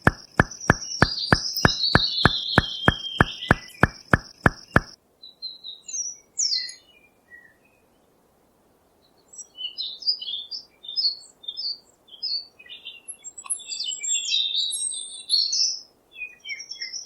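Small birds chirping and twittering in short, scattered high calls. For the first five seconds these are preceded by a steady ticking, about four clicks a second, under a high falling tone that cuts off.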